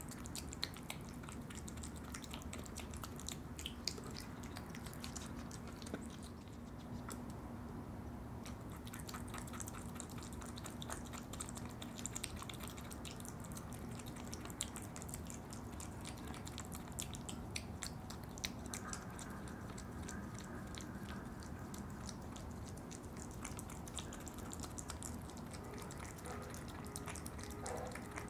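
Opossums eating yogurt: a steady stream of small wet smacking, licking and chewing clicks.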